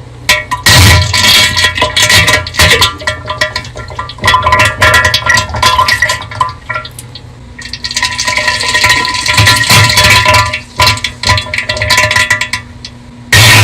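Bass-boosted diarrhea meme sound effect: loud, irregular wet sputtering bursts over a steady low rumble, with quieter stretches before a loud burst near the end.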